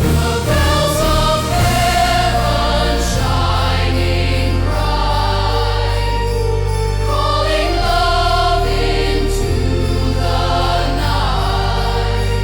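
Slow orchestral Christmas music with a choir singing sustained chords over deep held bass notes that change every few seconds.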